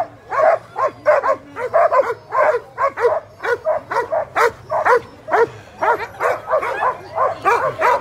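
A harnessed sled dog team barking and yipping non-stop, several barks a second from many dogs at once, while held at the start line before the race: dogs excited to run.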